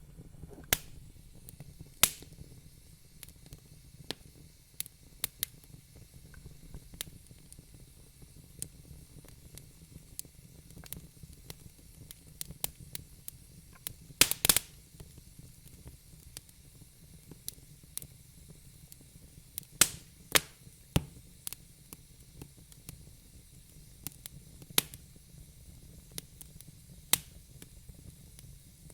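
Wood fire burning in a fireplace: a low steady hiss with irregular crackles and sharp pops from the burning logs, the loudest a quick cluster of pops about halfway through.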